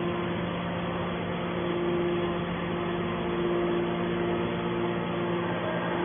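Horizontal cast iron scrap baler running: a steady machine hum at one constant pitch.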